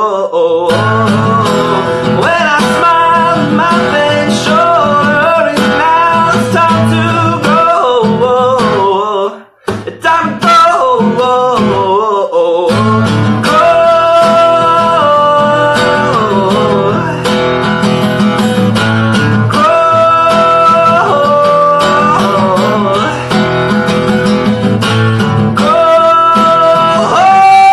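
A man singing with a strummed acoustic guitar. The sound cuts out briefly about nine and a half seconds in.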